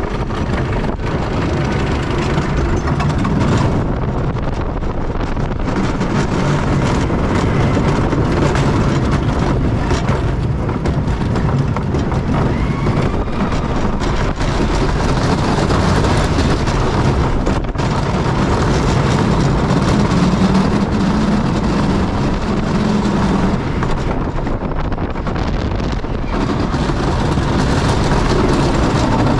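Wooden roller coaster train running at speed over its wooden track, a loud, steady rumble and rattle of the wheels and cars, heard from the front row of the train.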